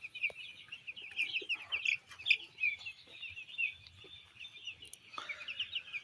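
A flock of broiler chickens cheeping continuously, many short high calls overlapping into a steady chatter.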